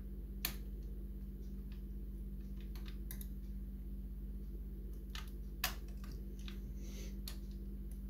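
Scattered light metallic clicks from a lever-lock pick working inside a five-lever mortice lock, probing the levers one by one for the binding ones. A steady low hum runs underneath.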